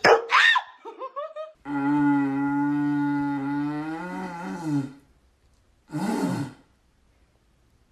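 A short high squeal, then one long, steady, low-pitched animal call lasting about three seconds, which ends wavering. A brief noisy burst follows about a second later.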